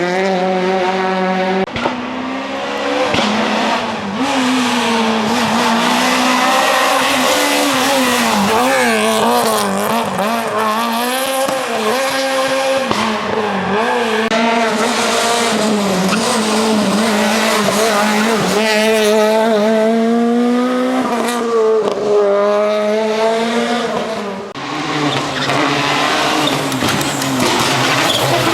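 Ford Fiesta RS WRC rally car's 1.6-litre turbocharged four-cylinder engine driven hard. The revs climb and drop again and again, pitch swinging up and down through gear changes and corners, with a brief lull about three-quarters of the way through.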